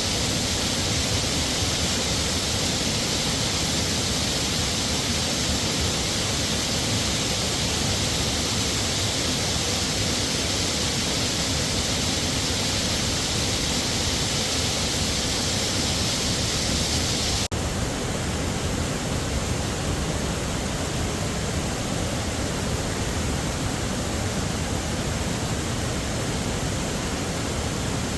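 Heavy mountain waterfall rushing in a dense, steady roar of falling water. About two-thirds of the way through, the high hiss abruptly drops a little and the roar goes on slightly duller.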